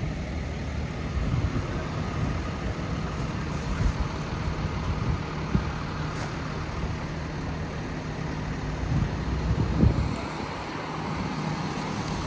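Street traffic: a box delivery truck's engine idling close by as a steady low hum, with other cars passing on the road.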